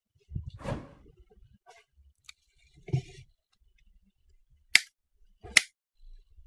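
Diagonal cutters snipping off the wire leads of a small hand-soldered LED board: two sharp snips, a little under a second apart, near the end. Softer handling noises come earlier.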